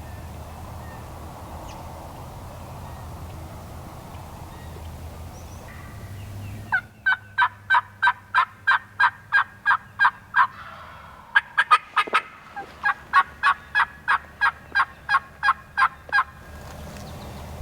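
Turkey yelping in two long runs of quick, evenly spaced notes, about four a second, each run lasting several seconds. The yelping starts after several seconds of low background noise.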